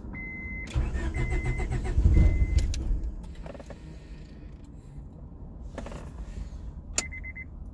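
The Honda Prelude's starter cranks the cold engine for about two seconds with a fast even chug. It gets loudest near the end of the cranking, then dies away without settling into an idle. An electronic chime beeps about once a second during the cranking and again in quicker beeps near the end.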